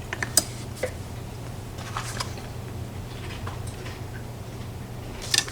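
Scattered small metallic clicks and taps of lock picks working in a PACLOCK 90A padlock, with a louder double click near the end, over a steady low hum.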